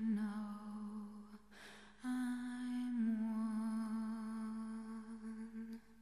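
A single unaccompanied voice holding long wordless notes, hummed, with a short breath after about a second and a half. The pitch steps up slightly for the second note, then settles back down for a long final note.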